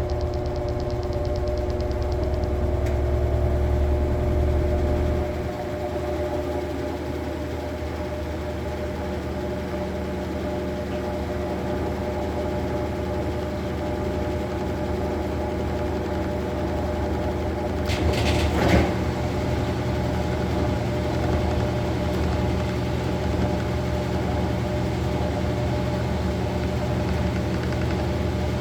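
Maytag Bravos top-load washing machine running with a steady motor hum. The low hum drops about five seconds in, and a brief louder noise comes about eighteen seconds in.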